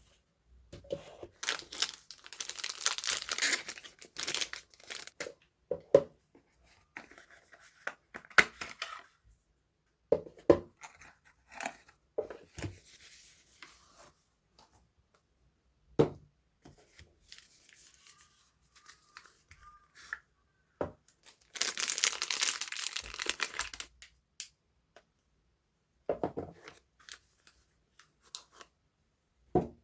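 Soap packaging being torn open and crinkled by hand, with two longer stretches of tearing, one a couple of seconds in and one about two-thirds through. Scattered taps and knocks come from items being handled and set down.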